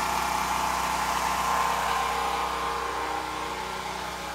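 Portable gasoline generator engine running steadily, supplying the house refrigerator during the power shutdown; it fades slightly near the end.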